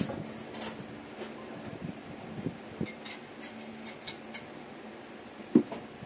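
Light clicks and taps of a titanium slip-on motorcycle muffler being handled on a table, with a louder knock about five and a half seconds in as it is set down.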